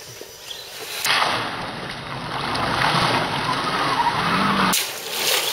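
Radio-controlled scale crawler truck driving through wet mud, leaves and shallow water, its tires churning and throwing up spray. The noise starts abruptly about a second in.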